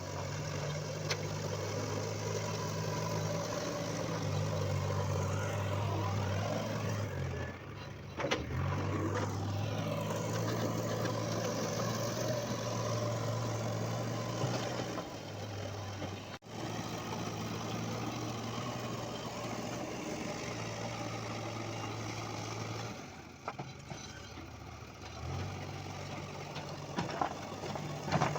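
JCB 3DX backhoe loader's diesel engine running, its pitch stepping up and down several times, with brief drops in loudness.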